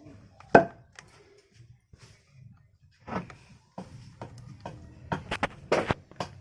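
Irregular hard knocks and clacks of objects being handled and set down, the loudest about half a second in and a quick run of them near the end.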